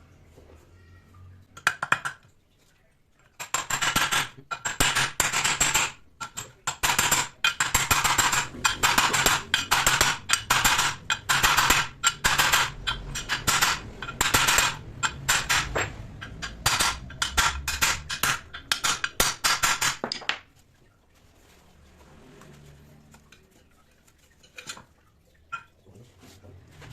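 Rapid metal-on-metal clinking and tapping, a short burst and then a long dense run of sharp strikes that stops abruptly, leaving a few faint clicks.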